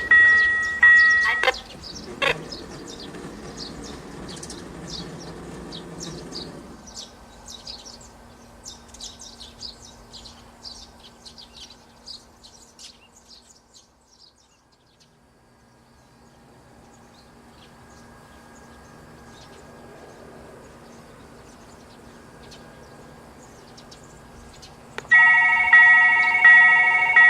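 Railroad crossing warning bell ringing in repeated strikes, cutting off about a second and a half in; birds chirping over a faint low hum, then the crossing bell starting again near the end, about one and a half strikes a second, signalling an approaching train.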